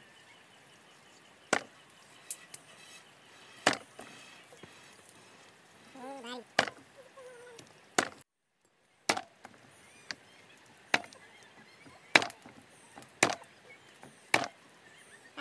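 Heavy knife chopping raw chicken on a wooden stump chopping block: about ten sharp, separate chops, roughly one every second or so.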